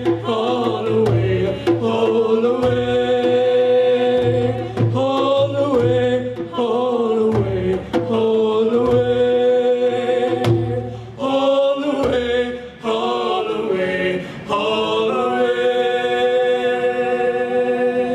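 Several voices singing a shanty chorus in harmony over a steady hand-drum beat, closing on a long held chord near the end.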